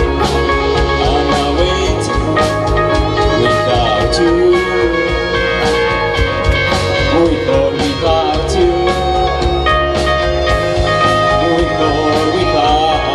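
Live rock band playing amplified music: guitar, bass and drums, with a wavering lead melody line on top.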